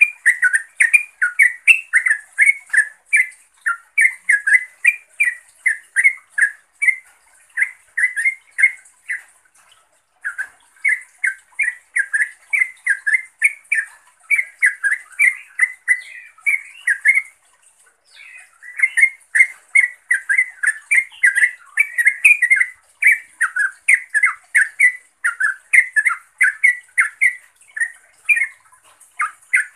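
Yellow-vented bulbul (trucukan) calling: a long, fast run of short, sharp chattering notes, about three a second, with a brief break a little past halfway. It is a bulbul calling to rivals or companions.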